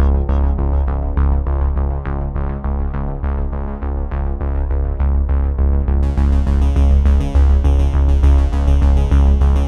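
Background electronic music: synthesizer over a steady beat with a heavy bass, with brighter high percussion joining about six seconds in.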